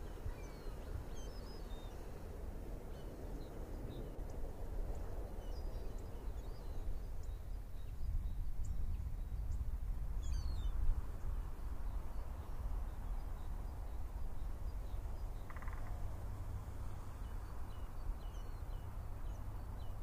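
Outdoor ambience: a steady low rumble with faint, scattered high bird calls, a few at a time, near the start, about halfway through and near the end.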